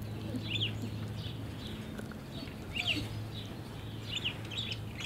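Birds chirping in short calls, a handful of times, over a steady low hum.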